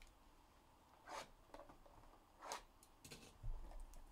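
Faint handling of a cardboard trading-card box: two short rasping swishes about a second apart as the box is slid and opened, then a soft bump near the end.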